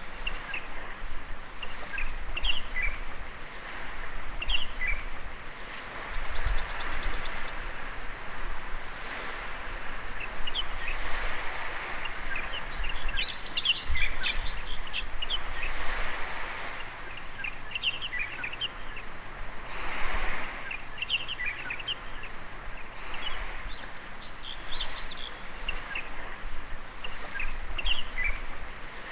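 Small waves washing onto a beach, swelling every few seconds, with birds chirping and twittering throughout; a quick bird trill comes about six seconds in.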